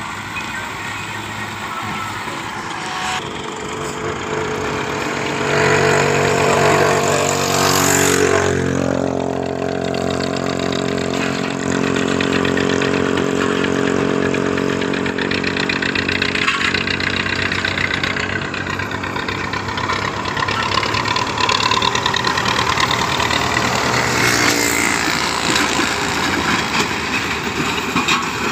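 Diesel farm tractors working the field: a Fiat 640 pulling a laser land-leveling scraper and a Belarus 510 pulling a disc harrow. The engine sound grows louder about a fifth of the way in as a tractor comes close, shifts in pitch a little later, and swells again near the end.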